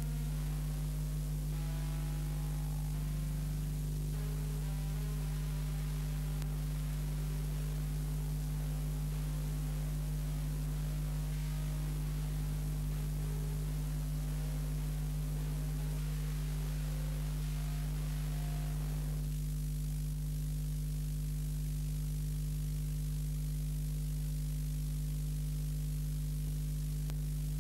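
Steady electrical mains hum with hiss. Faint music sits underneath it and stops about two-thirds of the way through.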